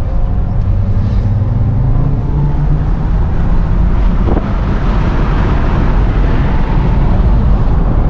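Audi's engine and road noise heard from inside the cabin while driving at about 90 km/h in fourth gear. A steady low engine hum sits under the sound, and the rush of wind and tyres grows louder from about halfway through.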